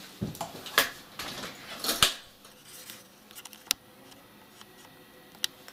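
Small plastic makeup items, lipstick tubes and gloss containers, clicking and knocking against each other and the case's compartment dividers as they are handled in a makeup train case. A few separate sharp clicks, the loudest about two seconds in.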